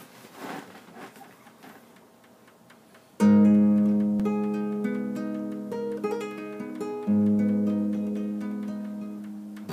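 Acoustic guitar played fingerstyle: it comes in suddenly about three seconds in with a low bass note ringing under picked higher notes that fade, and a second strong bass note about seven seconds in. Before it starts there is only a faint rustle.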